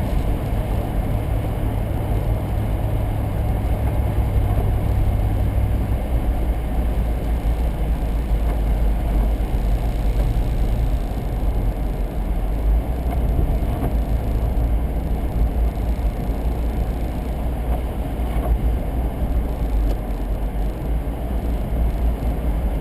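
Steady road and engine noise inside a moving car's cabin, with a low hum that drops away about six seconds in.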